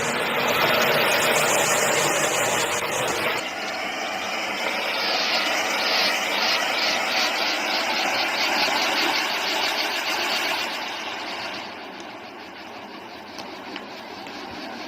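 Anar flowerpot firework burning: a loud, steady hiss of spraying sparks with fine crackling, dying down about eleven seconds in as it burns out.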